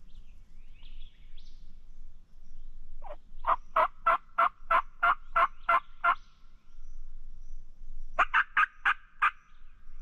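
Turkey yelping: a series of about ten yelps at roughly three a second, then after a pause a quicker run of about six. A small bird chirps faintly about a second in.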